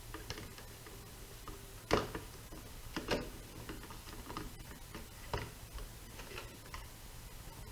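Scattered light clicks and taps of small objects being handled, loudest about two seconds in, with others near three and five seconds.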